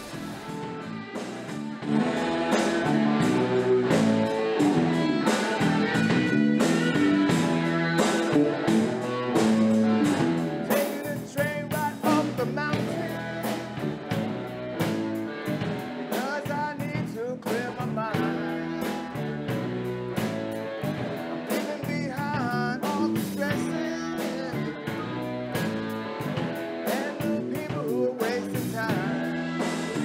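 Live blues-rock band playing: electric guitar leading over bass guitar and drum kit, getting louder about two seconds in.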